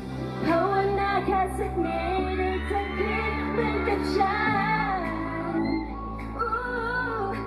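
Thai pop song with female group vocals over a backing track with a heavy bass line; the bass pattern changes about halfway through.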